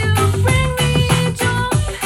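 A pop/dance song with a steady beat, bass and guitar, played as a sound test through a pair of bookshelf speakers with 5.5-inch paper-cone woofers and silk-dome tweeters.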